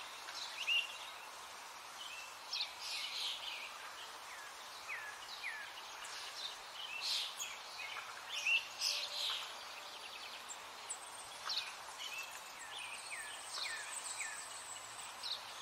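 Small birds chirping, with many short, high chirps, some sliding down in pitch, scattered irregularly over a steady outdoor hiss. A faint, high, steady tone joins near the end.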